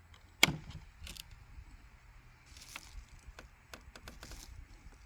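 A geode set down on a hard surface with one sharp knock about half a second in, followed by fainter clicks and scrapes of rock specimens being handled.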